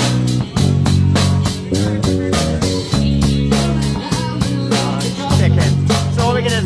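Live band playing a rock song: electric guitar and bass chords over a drum kit keeping a steady cymbal beat.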